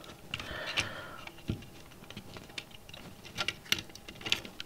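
Light, irregular clicks and taps of component leads being pushed into and handled on a perforated prototyping board, with a brief soft rustle about half a second in.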